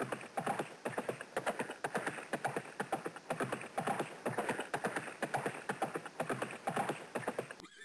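Galloping hoofbeats: a fast, steady clip-clop rhythm of sharp knocks.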